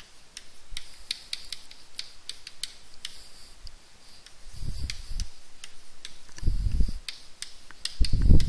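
Chalk writing on a blackboard: a quick run of sharp taps and short scratches as letters are written. A few dull low thuds come in the second half, the loudest near the end.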